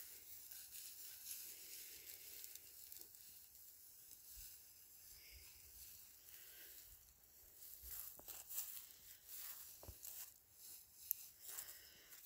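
Faint rustling and crinkling of tall dry grass brushed by a person walking out electric sheep netting. It grows a little louder and more uneven in the second half, with one sharp tick near the end.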